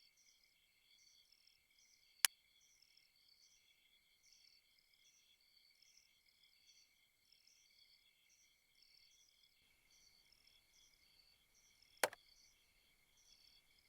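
Crickets chirping, a faint, rapid and steady chorus of several insects at once. Two single sharp clicks break in, one about two seconds in and one near the end.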